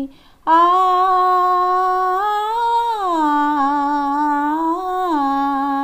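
A woman humming a wordless melody with no accompaniment, the tune of the Telugu song she is singing. She comes in about half a second in on a held note that rises a little past two seconds in and drops back near three seconds.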